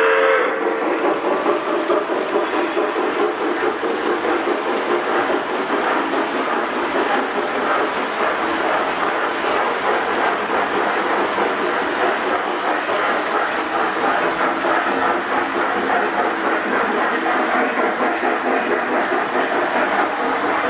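Lionel O-gauge model train running past on its track, the wheels giving a steady rattling rumble. A whistle cuts off just at the start.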